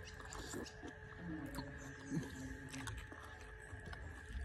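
Chewy kuay jap yuan rice noodles being slurped and chewed: soft wet mouth sounds with small clicks, and a short low hum in the middle.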